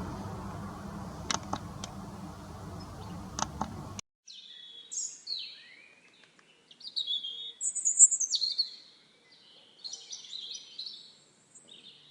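Steady outdoor background noise with a few sharp clicks. About four seconds in it cuts to a clean recording of small songbirds chirping and twittering in short high phrases separated by pauses.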